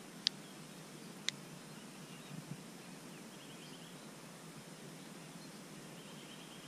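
Faint steady outdoor background noise with two sharp clicks about a second apart near the start and a few soft low knocks. Twice there is a faint, rapid, high trill, a small bird.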